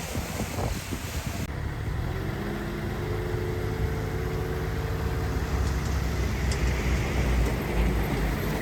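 Diesel engine of heavy earthmoving machinery running steadily with a low rumble and a faint whine above it. The sound changes abruptly about one and a half seconds in, and before that the noise is rougher, with a few knocks.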